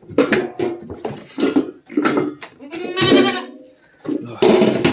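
Goats bleating: several short calls, with one longer, wavering bleat about three seconds in.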